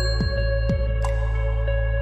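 Instrumental background music: held chords over a deep steady bass, with a few struck notes.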